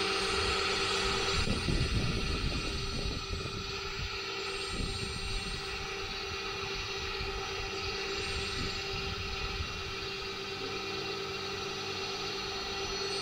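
Pressure washer running steadily, a constant engine or pump tone under the hiss of the spray, a little louder and more uneven for the first couple of seconds.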